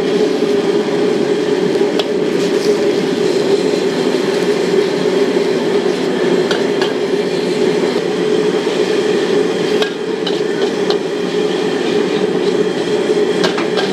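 High-pressure gas wok burner running with a steady, loud rush, with a few sharp metallic clinks of a metal utensil striking the wok.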